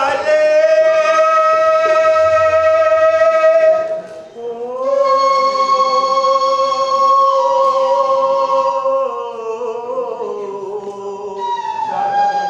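A man singing long, high held notes a few seconds each, with a short break about four seconds in and the pitch stepping down near the end.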